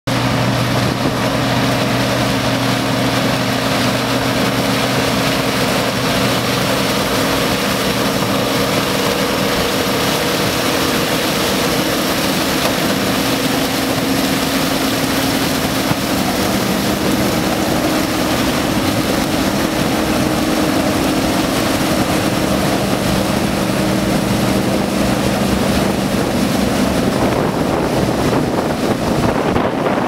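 Old combine harvesting corn: engine and machinery running steadily, a constant low hum under a loud, even rushing noise.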